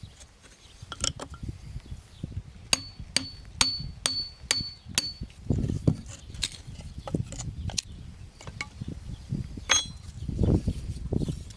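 Metal clinking on a sharpening steel: a run of six sharp taps about two a second in the middle, each leaving a brief high ring, with scattered lighter clicks and a low rumble of handling noise.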